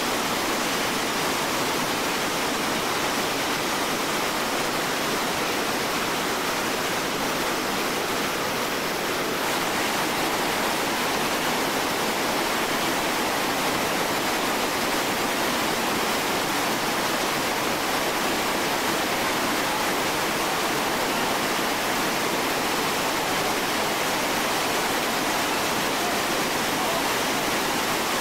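Steady rushing of a large whitewater rapid, heavy river water churning around big boulders.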